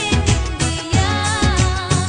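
Background music: a song with a singing voice over a repeating low bass beat.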